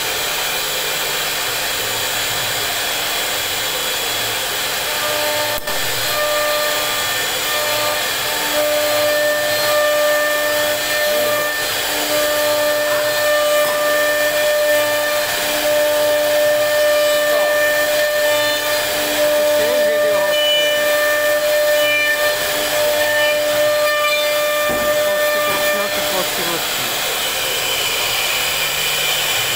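CNC router spindle carving a relief pattern into a solid wood panel: a steady hiss of the bit cutting wood. From about six seconds in to near the end a steady whine rides over it, breaking off briefly now and then.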